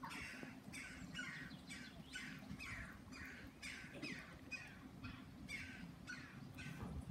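Level crossing audible warning (yodel alarm) sounding faintly: a short falling electronic chirp repeated evenly, about two to three times a second.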